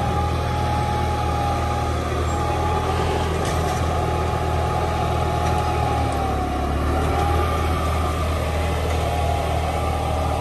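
John Deere tractor's diesel engine running steadily under load as it pulls a Gaspardo planter sowing maize. A steady high whine sits over the engine note and dips briefly about six seconds in.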